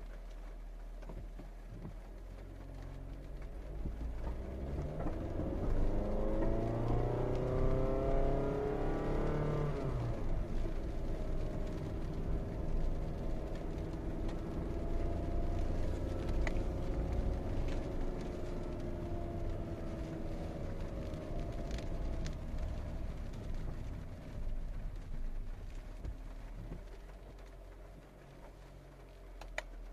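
Honda Fit hybrid (i-DCD) 1.5-litre four-cylinder engine, heard from inside the cabin, pulling away from a standstill in its very low first gear. Its pitch rises steeply for several seconds, then drops abruptly about ten seconds in as the dual-clutch gearbox shifts up to second. It then runs steadily at lower revs and fades out near the end as the car slows.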